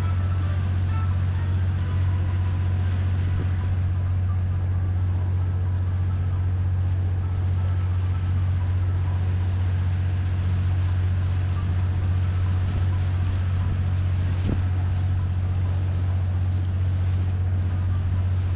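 Sightseeing cruise boat's engine running with a steady low drone.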